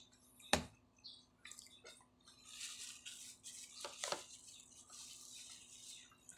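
Faint sounds of eating rice with a spoon: soft chewing and mouth noises, with a few sharp clicks about half a second in and again around four seconds in.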